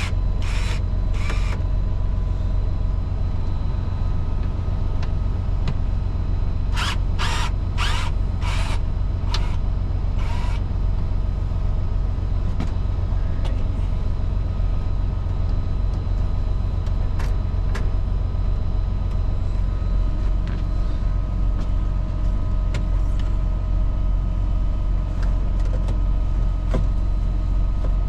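Semi truck's diesel engine idling steadily with a deep low hum. Short bursts of a power drill come in quick groups near the start and again about seven to ten seconds in.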